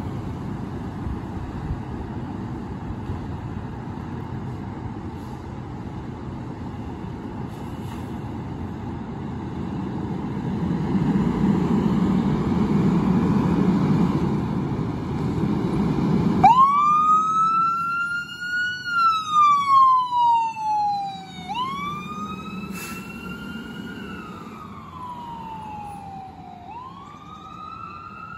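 Fire engine pulling out with its engine running, a low rumble that grows louder, then about sixteen seconds in its siren starts, wailing in slow rising and falling sweeps. The siren fades as the engine drives away.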